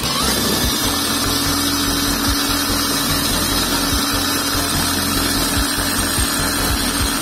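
Battery-powered impact wrench spinning a sandpaper-wrapped rod at steady speed while a small metal part is held against it: a steady motor hum under a loud scraping hiss as the part's sharp edges are sanded smooth.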